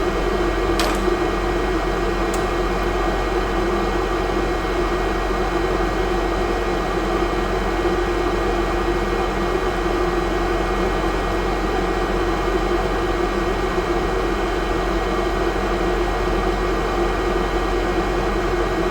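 Hot air rework station blowing steadily, a fan-driven rush of air with a low hum, as the replacement USB-C port is soldered onto the board. One faint click about a second in.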